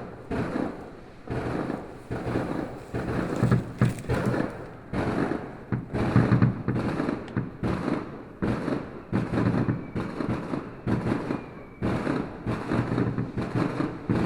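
New Year's fireworks going off in a dense barrage: one bang after another, several a second, each with a rumbling echo.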